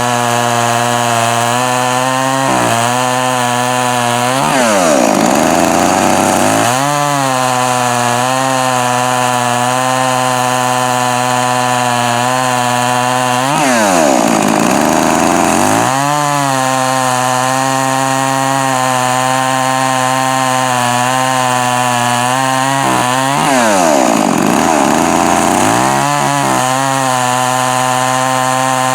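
Two-stroke chainsaw running at high revs. Three times the revs sink deeply and climb back up over a couple of seconds.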